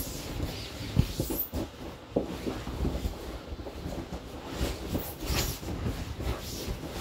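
Inflatable vinyl whale rubbing, creaking and squeaking under a person's weight as he shifts on it. There are soft irregular thumps, a sharper knock about a second in, and a couple of brief high squeaks.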